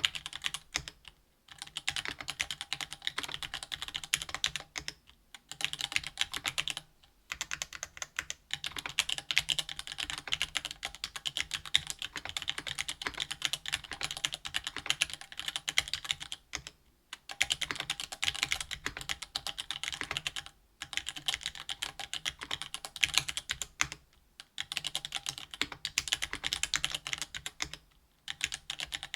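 Fast continuous typing on a mechanical keyboard with Gateron Black Ink linear switches (60 g), an aluminum plate and GMK keycaps: a dense stream of key clacks, broken by brief pauses every few seconds.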